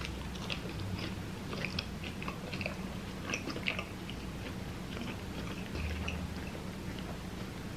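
A person chewing a mouthful of food with her mouth closed: soft, irregular wet clicks and crackles, over a low steady hum.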